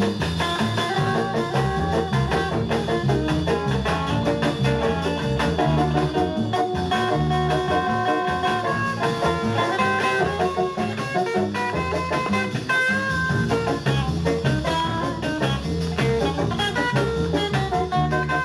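Music playing from a vinyl single on a 1963 Fidelity UA7 record player: a tune with a steady beat.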